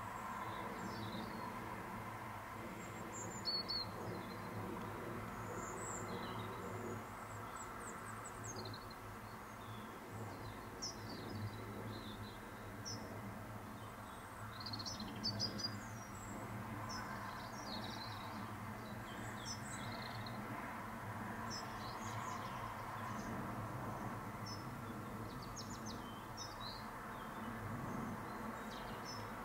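Small birds chirping and calling on and off throughout, in many short high chirps, over a steady low hum.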